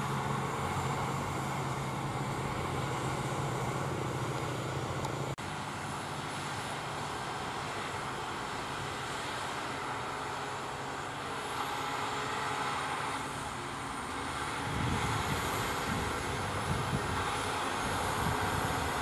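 Case IH Quadtrac 620 tracked tractor's diesel engine running under load as it pulls a Horsch Tiger disc cultivator through the soil, a steady drone of engine and working discs. The low rumble grows louder about three-quarters of the way through, with a faint wavering high whine above it.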